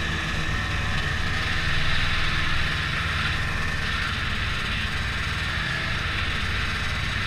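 Ski-Doo snowmobile running at speed across snow, a steady engine and track noise that swells briefly about two seconds in, then eases off.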